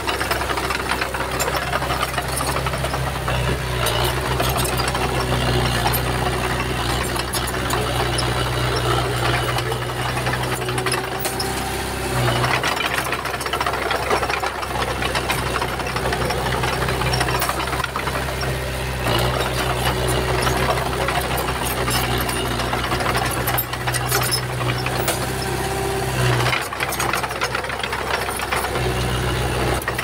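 Komatsu bulldozer's diesel engine running steadily under load, with rattling and clanking over it. The engine note shifts about twelve seconds in, again around nineteen seconds, and near the end.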